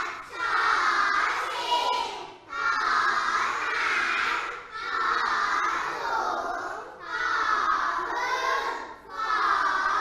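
A class of young children reciting in unison, in a sing-song chant: the Thai high-class consonants called out by name in about five phrases of roughly two seconds each, with a short breath between phrases.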